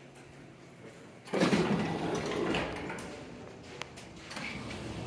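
Automatic sliding entrance doors opening about a second in, with a sudden rush of outside noise that then settles into a steady background.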